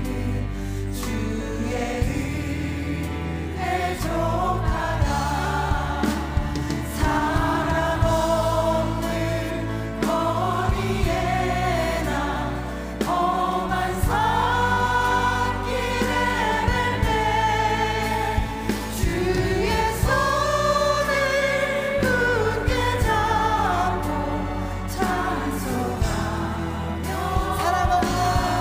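Women singing a slow Korean worship hymn in Korean, more than one voice, over sustained chords and bass from a live worship band.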